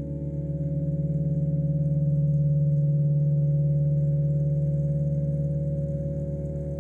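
Ambient electronic drone music played live on a keyboard: several held low tones layered together with a slight pulsing, swelling in loudness about two seconds in and easing off toward the end.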